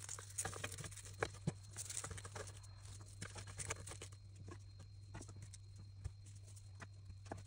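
Crisp red cabbage leaves crackling and snapping as gloved hands pull them apart, with irregular sharp cracks, busiest in the first few seconds. Later come fewer, softer clicks as eggs are set down on the leaves, over a faint low hum.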